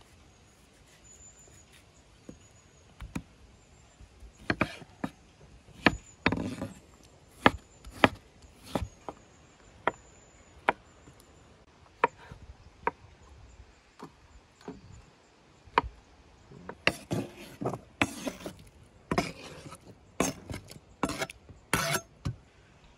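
Chef's knife chopping tomatoes on a wooden cutting board: sharp, uneven knocks of the blade striking the wood, coming closer together near the end.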